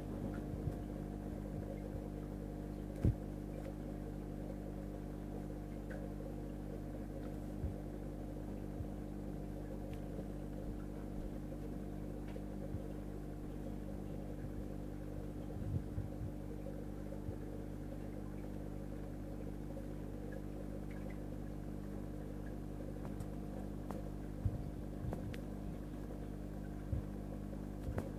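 Steady low electrical hum of marine aquarium equipment, such as the tank's water pumps running, with a few small knocks now and then.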